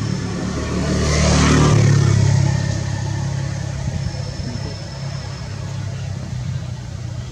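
A motor vehicle passing by: a low engine hum with a rush of road noise that swells to its loudest about two seconds in, then fades to a steady drone.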